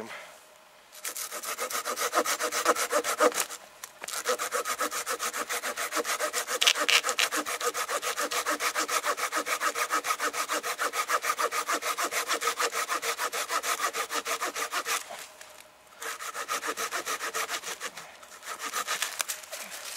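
Small, light Fiskars hand saw cutting through a dead conifer trunk about 7 cm thick, with quick, even back-and-forth strokes. The sawing stops briefly three times, then picks up again.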